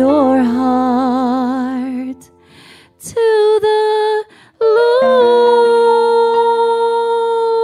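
A woman singing slowly into a microphone. There is a phrase with wide vibrato, a short pause, a brief phrase, another pause, then one long held note.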